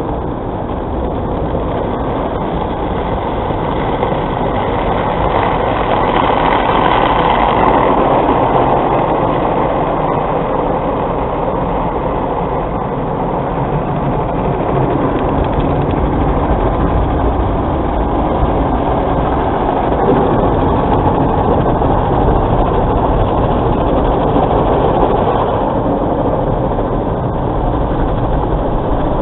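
Automatic car wash heard from inside the car: water and soap foam spraying onto the windshield and body with the wash machinery running, a steady rushing noise that swells a little at times.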